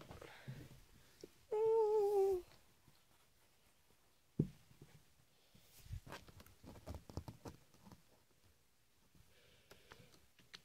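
A ferret scrabbling and rustling about on bedding and clothes, with a sharp knock about four seconds in and scattered soft taps a little later. Shortly after the start, a wavering pitched tone sounds for about a second and is the loudest thing heard.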